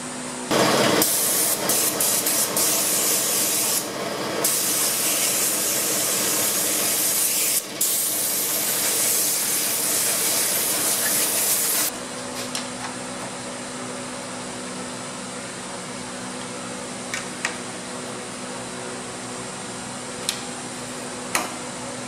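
A loud, steady spraying hiss lasting about eleven seconds, broken twice briefly, then cutting off suddenly. After it, a quieter steady machine hum with a few light clicks.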